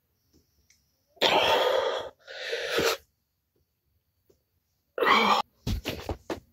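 A man breathing hard from the exertion of pushups: a long, forceful breath about a second in, then a second shorter one. Near the end comes another hard breath, followed by several quick short puffs.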